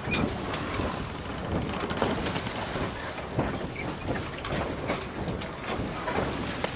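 Wind gusting on the microphone aboard a sailboat under way, with water noise.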